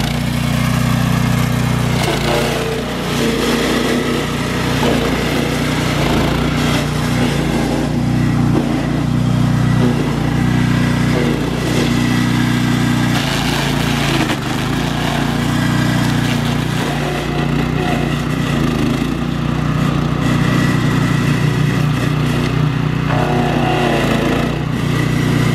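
Engine of a heavy work machine running steadily and loudly during tree cleanup work, its pitch shifting a little with load.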